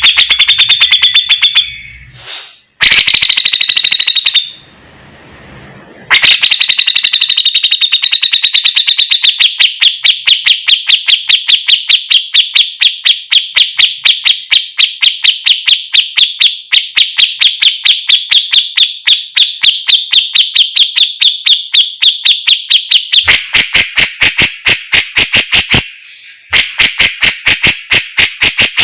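Grey-cheeked bulbul (cucak jenggot) singing in full 'gacor' form: a long, fast run of evenly repeated sharp, high notes, briefly broken in the first few seconds and turning louder and harsher near the end. The recording is close and loud.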